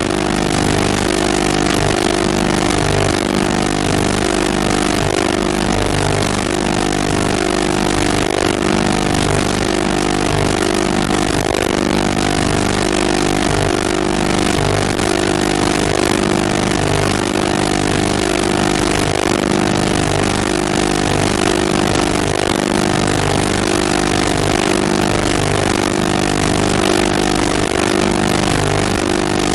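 A steady mechanical drone, like an engine running at constant speed, holding one pitch and level with no change.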